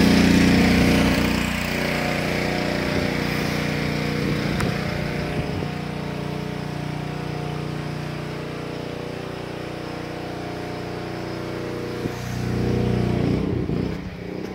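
A small engine running steadily, louder in the first second and again for a couple of seconds near the end.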